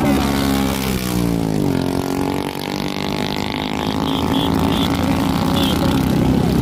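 Motorcycle engine running at low speed, its revs dropping over the first two seconds and then holding steady.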